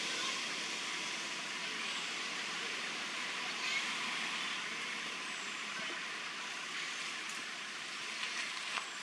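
Steady forest background noise: an even hiss with no distinct event in it.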